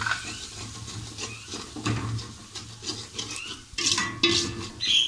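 A spoon scraping against the bottom of a metal pot while spices are stirred into frying tomato masala, in repeated strokes that are loudest near the end.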